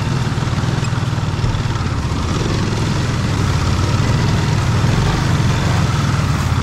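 Adventure motorcycle engine running steadily, with a constant rushing noise over it.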